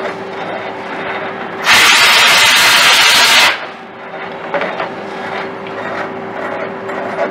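CNC lathe running with its spindle turning the workpiece, a steady machine hum. A loud hiss breaks in a little under two seconds in and lasts about two seconds.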